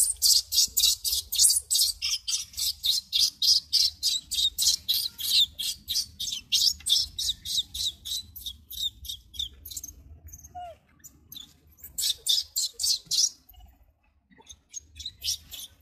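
Rapid, regular high-pitched chirping, about four or five pulses a second. It stops about ten seconds in, then comes back twice in short runs.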